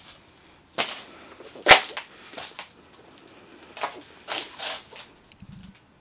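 Handling noise from cameras being moved about by hand: several short rustles and knocks, the loudest a sharp knock a little under two seconds in.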